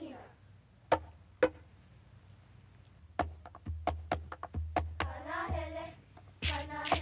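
Hula ʻiliʻili: smooth stones clicked together in pairs in the dancers' hands. Two sharp clicks come about a second in, then a quick run of clicks from about three seconds. Children chant briefly around five seconds and again near the end.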